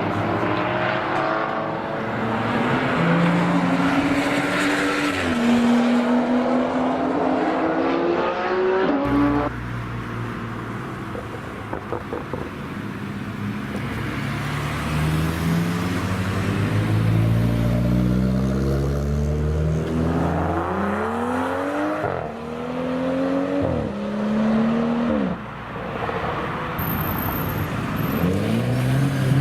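A BMW M135i/M140i/M235i's turbocharged 3.0-litre straight-six accelerating hard. Its note climbs and drops back at each gear change. The sound cuts abruptly to another run about nine seconds in, and there are several quick upshifts in a row near the end.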